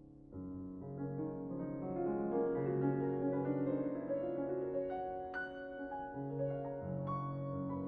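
Solo piano playing: after a held chord dies away, a new phrase comes in and climbs step by step into the upper register over sustained bass notes, with bright high notes standing out about halfway through.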